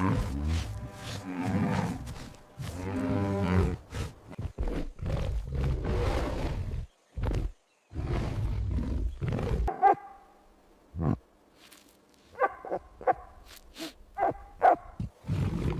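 A big cat roaring and growling in a series of deep, drawn-out roars, followed near the end by several short, higher calls.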